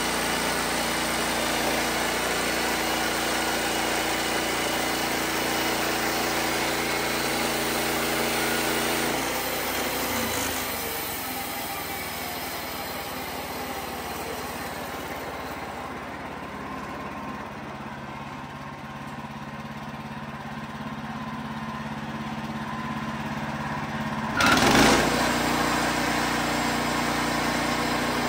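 Wood-Mizer LX55 portable band sawmill running, its engine driving the band blade through a pine log. The engine is steady, then quieter and duller from about ten seconds in, with one loud short knock near the end before the engine sound comes back fuller.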